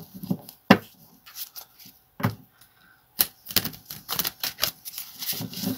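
A deck of cards being shuffled by hand: a run of irregular sharp clicks and slaps, several a second.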